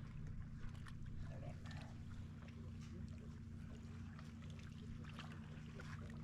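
Steady low motor hum, with faint rustling and scattered clicks over it.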